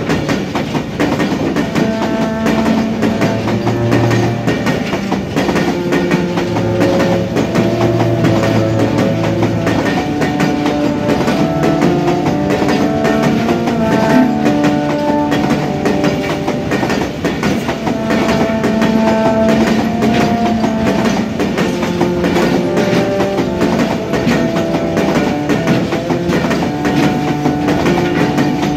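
A long freight train of oil tank wagons rolling past close by, its steel wheels clattering over the rail joints in a steady clickety-clack.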